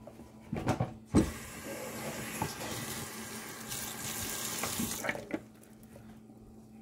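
Kitchen tap running steadily for about four seconds, starting just after a sharp knock about a second in. A few handling knocks come before and after it.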